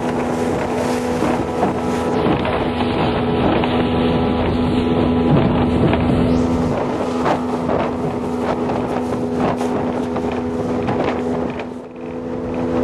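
Outboard motor of a small open skiff running steadily at speed, with wind buffeting the microphone and water rushing past the hull. The level dips briefly near the end.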